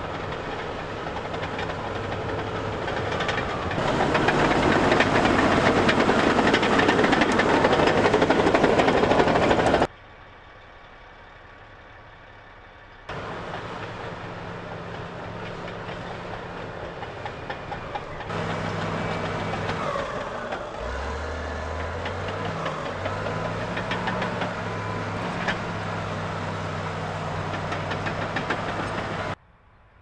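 Large tracked bulldozer's diesel engine working under load as its blade pushes debris, with a steady deep engine note and clatter. It gets louder and noisier for several seconds early on and goes much quieter for a few seconds. Around the two-thirds mark the engine note briefly drops and rises again.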